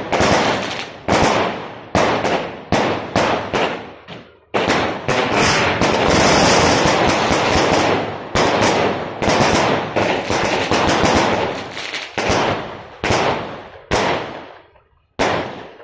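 Repeating firework cake firing shot after shot: a fast run of sharp bangs, about two a second, each dying away. A dense unbroken stretch of bangs runs from about four and a half to eight seconds in, then separate bangs resume and space out to a last one near the end.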